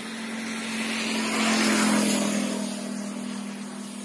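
A vehicle passing on the highway, rising to its loudest about two seconds in and fading away, over a steady low hum.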